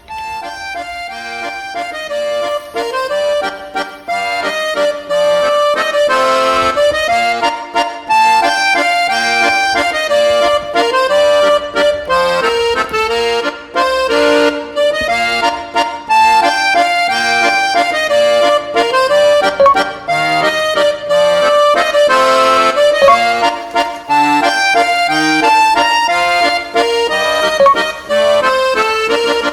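Background instrumental music led by an accordion, fading in at the start, with a light cymbal-like accent about every eight seconds.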